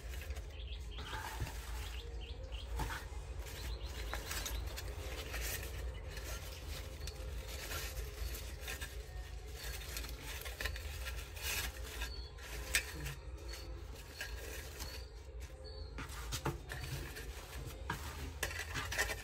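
Rustling and crinkling of plastic deco mesh and ribbon loops being handled and arranged, with scattered small clicks, over a low steady hum.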